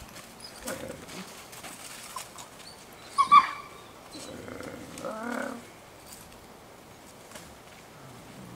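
Gray wolves crying out: a sharp, high yelp about three seconds in, the loudest sound, then a short wavering whine about two seconds later.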